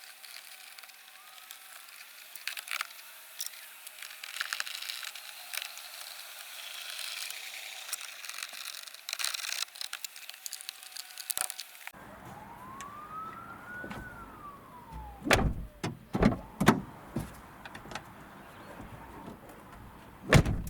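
Peugeot 308 SW front door being worked and tested: scattered clicks and rattles, then a power window motor whining up and then down in pitch, then a run of heavy thumps as the door swings and shuts, the loudest near the end. The door now swings without the check-strap click, the new check strap fitted.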